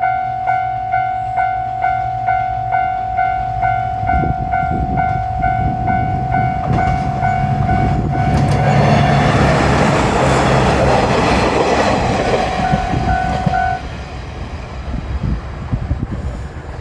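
Japanese railroad crossing bell ringing its 'kan-kan' at about two strikes a second while a diesel railcar train runs past over the rails. The train noise builds, is loudest mid-way, then eases, and the bell stops about 14 seconds in.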